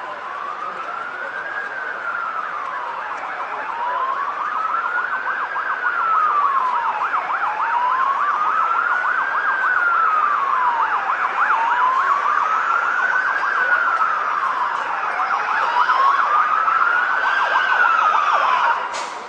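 Emergency vehicle siren wailing, slowly rising and falling about every four seconds, growing louder as it approaches. From about six seconds in, a fast yelping warble joins it. The siren cuts off suddenly near the end.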